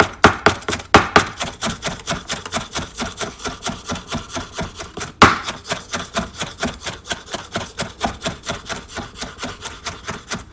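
Knife chopping vegetables in quick, even strokes, about five a second. A few harder chops come near the start and one about halfway through.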